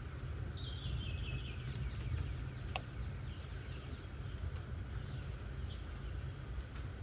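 Steady rain hiss over a deep constant rumble, with scattered sharp drip ticks. A bird twitters in a quick falling series of notes about half a second in, trailing off over the next few seconds.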